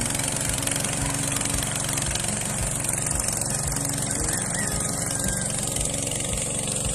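A small engine running steadily, an even drone with no change in speed.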